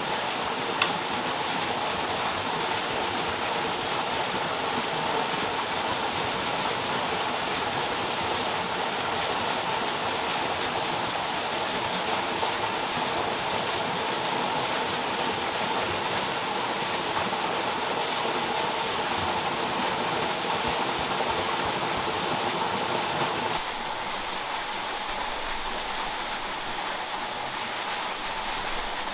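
Steady rush of running water, with one sharp knock about a second in. Near the end the low part of the sound falls away and it thins out.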